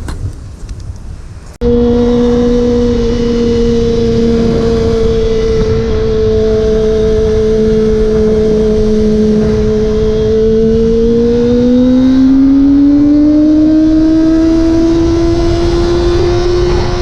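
Motorcycle engine droning steadily under heavy wind rush while riding at speed. The sound starts abruptly about a second and a half in, and the engine's pitch rises gradually from about ten seconds in as the bike speeds up.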